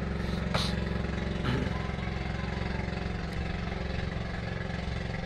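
A small engine running steadily: an even, low drone. A brief hiss comes over it about half a second in.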